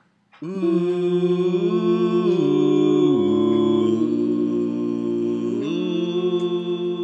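A cappella vocal harmony: several voices start together about half a second in and hold sustained chords, sliding together into new chords about two and a half, three and five and a half seconds in.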